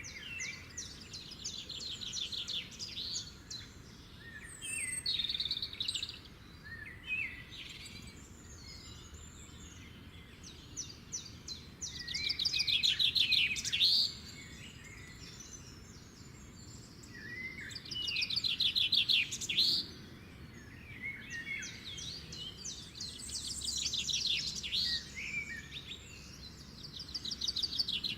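A songbird singing in fast, chattering phrases of one to two seconds, repeated every few seconds, with a faint steady background hum.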